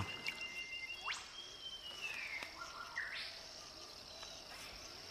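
Evening creek ambience: a steady high insect drone, with a few whistled bird calls that glide up and down.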